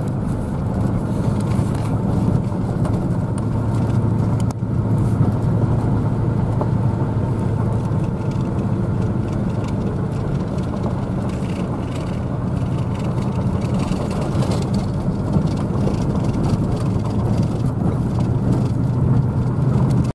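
Pickup truck driving on a gravel road, heard from inside the cab: a steady low engine drone with tyre and road rumble.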